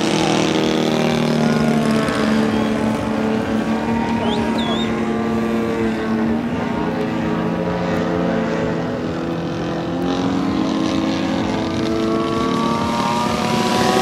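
Model airplane engine droning steadily, its pitch wandering slightly up and down.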